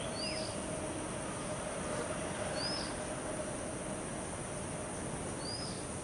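Lesser whistling ducks giving three short, high whistled notes that rise and fall, about two and a half seconds apart, over a steady hiss.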